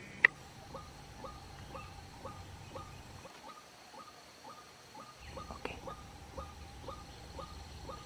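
White-breasted waterhen calls, a short upward-flicking note repeated about twice a second, with one sharp click right at the start.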